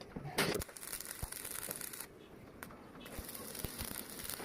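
Electric arc welding on mild steel: a crackling hiss that runs in two spells with a short break about two seconds in.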